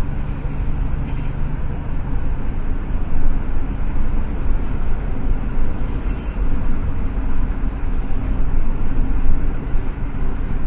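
Steady low rumble of a vehicle's engine and road noise, heard from inside the escort car.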